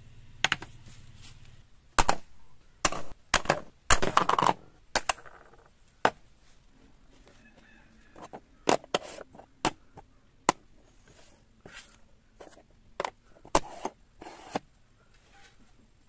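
Dry coconut shell halves and a wooden dowel being handled and set down on a table: a series of irregular sharp knocks and clicks, busiest in the first five seconds, with more scattered ones later.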